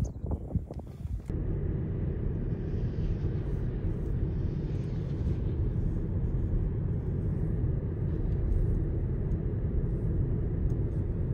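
Steady low rumble of a running vehicle, starting abruptly about a second in after a brief stretch of wind noise.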